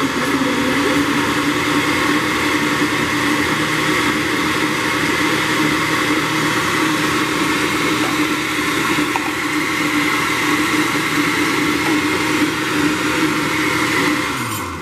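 Oster countertop blender motor running steadily at speed, blending a liquid flan mixture of eggs and evaporated and condensed milk. Near the end it is switched off and the motor hum falls in pitch as it spins down.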